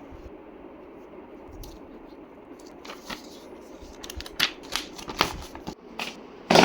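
Packaging and a laptop being handled: scattered rustles and clicks that come thick and fast from about four seconds in, ending with a loud knock near the end.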